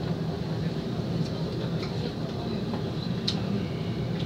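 Steady low hum of a Seoul Subway Line 2 car standing at the platform with its doors shut, just before it pulls away, with one short click about three seconds in.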